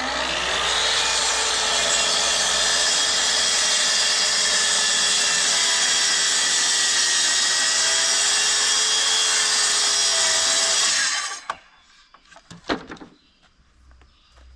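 Kreg track saw cutting through a board: the motor comes up to speed at the start, runs steadily under load for about eleven seconds, then stops abruptly. A couple of short knocks follow.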